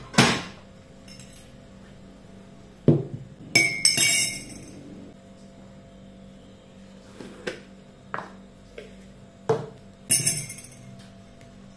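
Glassware and kitchen items knocking and clinking as a drink is made: a string of sharp clinks and knocks, the loudest cluster about four seconds in with a brief ringing ping, and another cluster near the end.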